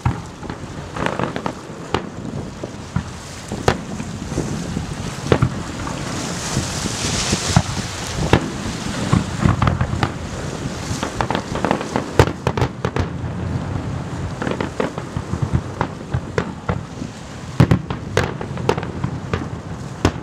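Fireworks display: aerial shells bursting in many irregular bangs, some close together, over a constant crackle. A denser hissing crackle swells for a couple of seconds around the middle.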